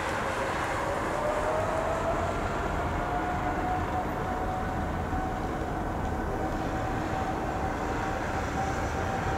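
Boeing 777-300ER's GE90 turbofan engines running as the jet taxis, heard as a steady rumble. A whine rises in pitch over the first few seconds, then holds steady.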